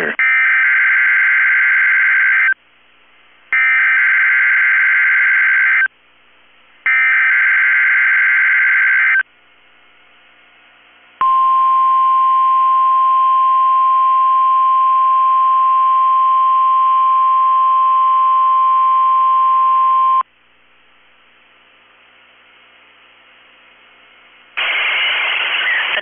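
NOAA Weather Radio SAME (Specific Area Message Encoding) digital header sent three times, each burst about two and a half seconds long with about a second between them. A couple of seconds later comes the steady 1050 Hz weather alert tone, held for about nine seconds. This is the start of a Required Weekly Test. A voice announcement begins near the end.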